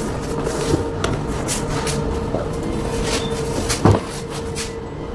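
A steady mechanical hum over a low rumble, with scattered short knocks; one louder knock comes near the end.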